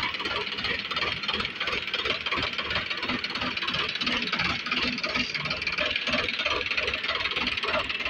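An engine running with a rapid low thudding, and people talking faintly underneath.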